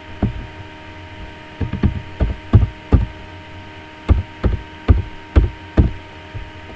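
Computer keyboard being typed on in uneven runs of dull knocking keystrokes, about fifteen in all, over a steady electrical hum.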